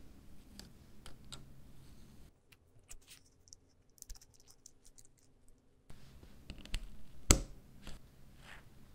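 Scattered light clicks and taps of small metal parts handled in gloved hands while a blowtorch's pump plunger is being assembled, with one sharper click a little after seven seconds in.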